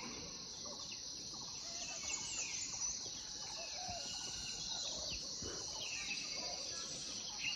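Several birds chirping and calling on and off over a steady high-pitched hiss of outdoor ambience.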